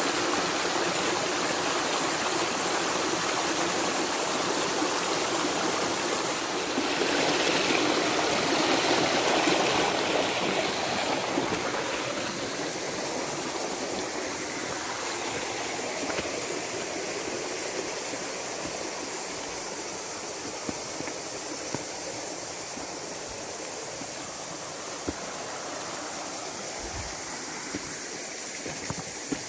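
Shallow forest stream running over stones, a steady rush of water. It swells for a few seconds about seven seconds in, then slowly grows fainter, with a few faint clicks near the end.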